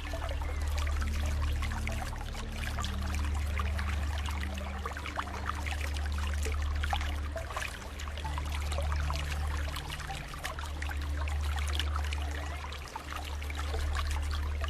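Steady trickling, splashing running water, with soft low held notes of light background music shifting pitch every second or two underneath.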